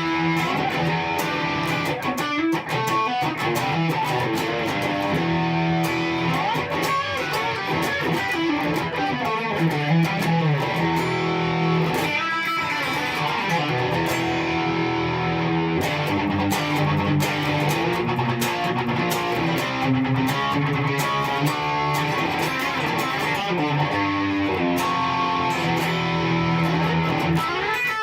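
Electric guitar played through a Yamaha THR100HD amplifier's lead channel and a two-speaker cabinet: an improvised lead line of sustained notes and runs, recorded on a phone.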